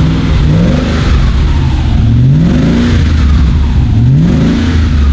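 Audi A8 D2's 4.2-litre V8, fitted with a BN Pipes exhaust, heard at the tailpipes while it is revved in several short throttle blips, each rising and falling back to idle. It is running on all eight cylinders after a jump start.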